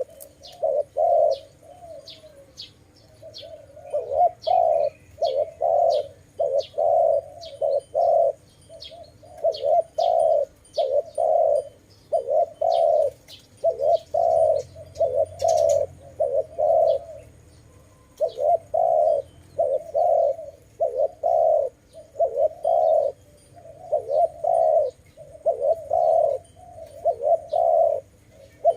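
Spotted dove (tekukur) cooing: low hooting coos repeated in short phrases, with brief pauses between the phrases.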